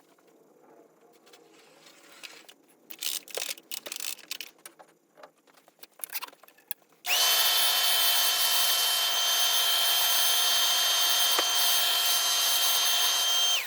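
Light clicks and handling of small parts, then a small vacuum cleaner switched on about halfway through, running steadily with a high motor whine over a loud rush of air, and switched off near the end, vacuuming dust from inside an open MacBook.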